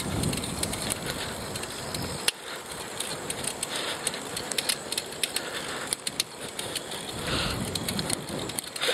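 Wind rushing over an earpiece microphone on a moving recumbent bicycle, with low gusty rumble near the start and again near the end, and many short light clicks scattered throughout.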